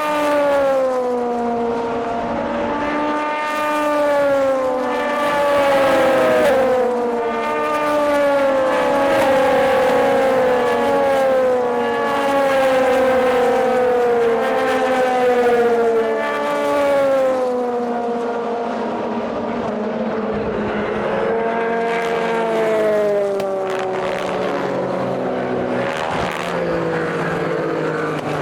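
Endurance racing cars passing one after another at speed, each engine note falling in pitch as it goes by, often two or more overlapping. The passes ease off briefly past the middle, then more cars come through.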